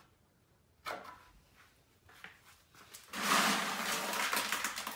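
A sharp click about a second in, then about two seconds of loud rattling and grinding of pea gravel being scooped up by hand.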